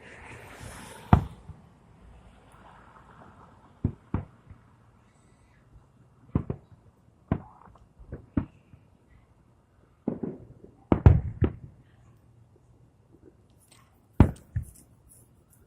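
Fireworks display shells bursting overhead: about a dozen sharp bangs at uneven intervals, some in quick pairs. A crackling hiss sounds near the start.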